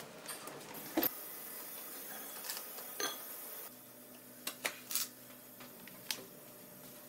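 Scattered sharp clicks and clinks of lab handling, about half a dozen, as a paper sample bag is taken from a drying oven and a small crucible is set on an analytical balance's weighing pan, with several close together near the middle. A faint steady hum lies underneath.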